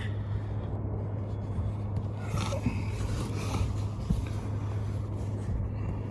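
A steady low mechanical hum over a rumble, with faint scraping about two to four seconds in.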